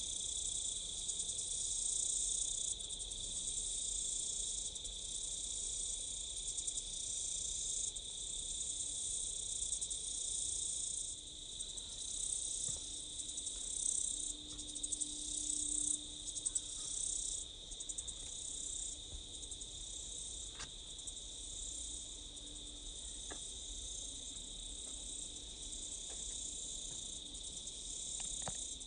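A steady, high-pitched chorus of insects, a continuous ringing trill with a hiss above it.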